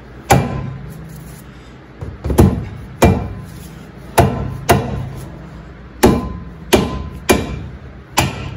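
Dead blow mallet striking the original front brake rotor of a 2016 Mazda 6 to knock it loose from the wheel hub. There are about nine blows at an uneven pace, a few leaving a short ring.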